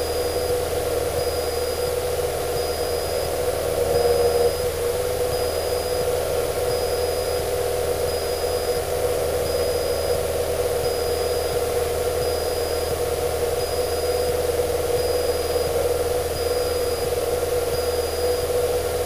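A Cessna 152's four-cylinder Lycoming engine and propeller droning steadily at climb power, heard inside the cabin, with a brief louder patch about four seconds in.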